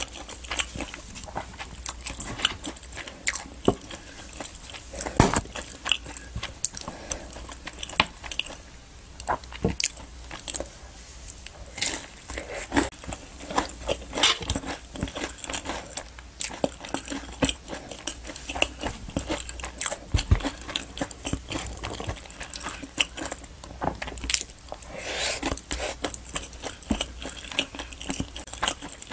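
Close-miked biting and chewing of crisp fried samosa pastry, with irregular crunches and crackles throughout.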